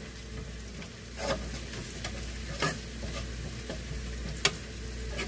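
Food sizzling as it fries in a pan, a steady hiss, with a utensil scraping and stirring in the pan three times, about one and a half seconds apart.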